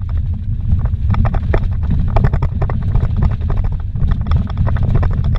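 Vehicle driving fast on a rough dirt road, heard from inside the cabin: a loud, steady low rumble from the tyres and suspension, with frequent irregular knocks and rattles as gravel and bumps hit the body.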